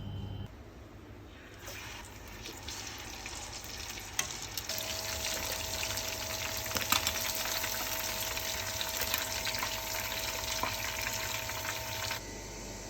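Food sizzling in a hot pan: a steady frying hiss with small crackles and pops. It starts about a second and a half in and stops abruptly near the end.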